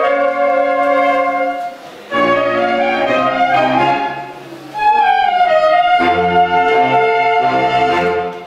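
Saxophone ensemble playing the closing bars of a piece: held chords broken by two short breaks and a rising melodic line, ending on a final chord that cuts off just before the end.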